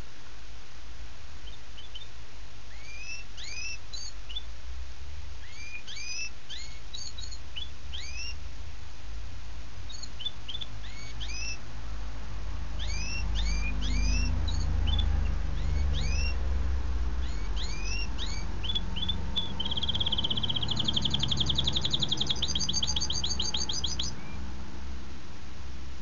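A songbird singing: short rising whistled notes repeated in small groups with pauses, then a fast, loud trill lasting a few seconds near the end. A low rumble runs underneath through the second half.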